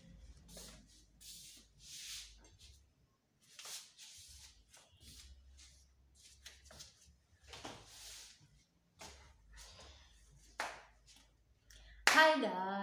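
A series of short rustles and handling noises close to the microphone, then near the end a woman's voice breaks in loudly with a held "ooh".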